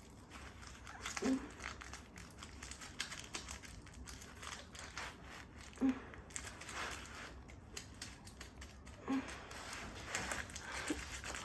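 Old Chupa Chups 12 kg washing machine running with a brick inside, its wrecked drum and loose parts making a faint irregular clattering and crunching, with a louder knock three times.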